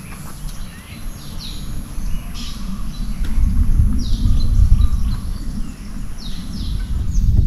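Birds calling in short, downward-sweeping chirps roughly once a second, over a low wind rumble on a moving microphone that grows louder about two seconds in.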